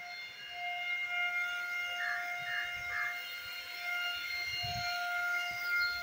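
Handheld electric paint spray gun running with a steady high whine, spraying wood polish; the whine wavers a little as the gun is moved.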